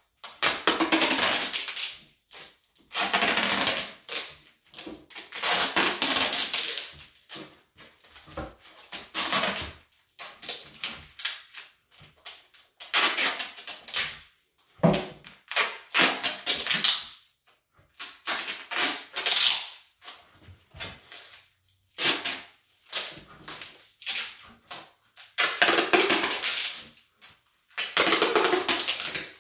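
Duct tape being pulled off the roll in repeated ripping bursts, each a second or two long, with short pauses between, as it is wound around the spliced end of a thick climbing rope.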